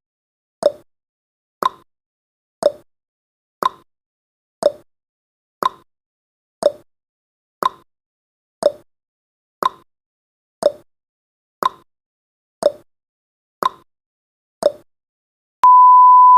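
Countdown timer sound effect ticking once a second in an alternating higher and lower tick-tock, about fifteen ticks. Near the end a steady beep starts as the timer reaches zero.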